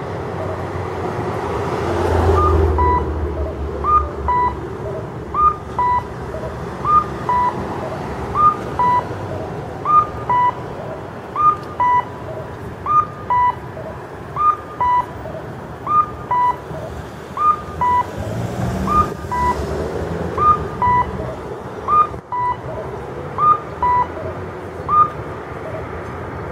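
Ryuun Denki audible pedestrian signal for the visually impaired, playing the cuckoo call through its pole-mounted speaker: a two-note "kak-koo", a higher note then a lower one, repeating about every second and a half. This signals that the walk light is green. Traffic runs steadily underneath.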